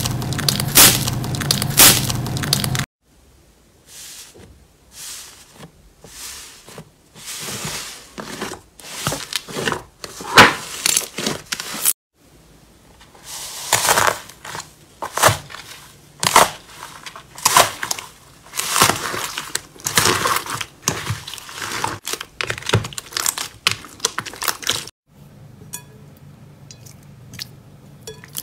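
Hands squeezing and pressing crunchy slime, giving a run of uneven crackles, crunches and pops, among them foam-bead slime (floam) pressed flat in a bowl. For the last few seconds it turns quieter, to faint sticky clicks as a glossy slime is kneaded.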